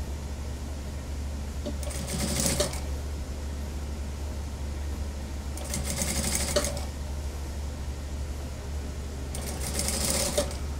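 Computerized industrial sewing machine stitching a curved seam of jacket cloth in three short runs of about a second each, roughly four seconds apart, with a steady low hum underneath.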